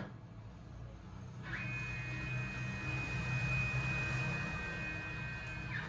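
NEMA 17 stepper motors turning the acme lead screws of a 3D-printed CNC foam cutter during a movement test. About a second and a half in, a high steady whine rises in pitch as the motors ramp up, holds for about four seconds, then falls as they ramp down near the end.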